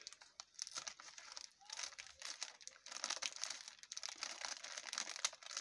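Foil-lined plastic snack packet crinkling and crackling in irregular bursts as it is handled and cut open with scissors.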